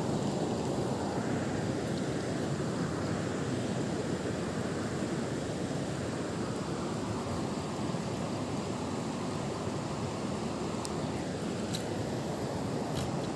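Steady rush of river water flowing over a riffle, an even noise with no break. A few faint ticks come near the end.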